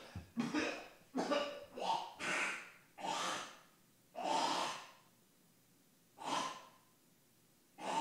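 A man's heavy breathing and gasps: a string of short, breathy bursts about every half second to second, then two more after a pause near the end.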